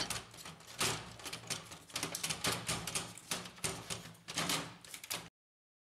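Brother laser printer's fuser unit being pushed and fitted into the plastic frame: a string of plastic clicks, knocks and rattles that cuts off suddenly about five seconds in.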